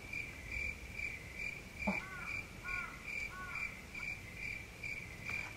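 Faint, steady insect chirping, a high pulse repeating about four times a second. About two seconds in come three short arching calls, like a bird's.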